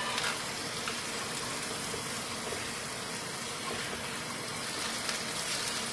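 Pork, onions and a liquid sauce sizzling steadily in a hot nonstick skillet as they are stir-fried, with a few light taps and scrapes of a wooden spatula against the pan. The sauce is still wet and being cooked down.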